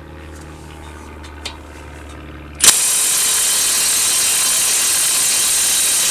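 Cordless Milwaukee M18 FUEL 3/8-inch impact wrench starting up suddenly about two and a half seconds in and hammering steadily on a caliper bracket bolt. The bolt, torqued to 79 ft-lb, does not break loose under it.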